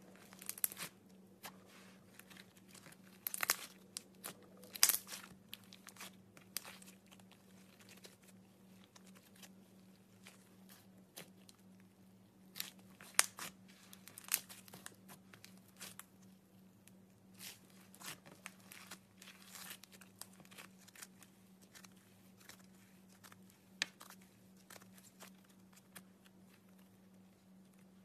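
Butter slime being worked by hand, giving irregular crackles, clicks and small pops as it is stretched and pressed, over a steady low electrical hum.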